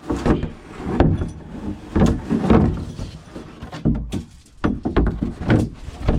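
A series of irregular knocks and thuds, about eight in six seconds, from hands-on work on combine parts.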